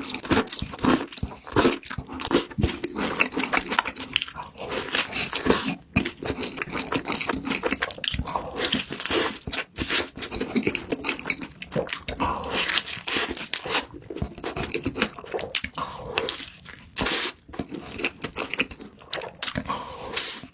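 Close-up eating sounds: food being bitten and chewed with wet, crunchy mouth noises in quick irregular clicks.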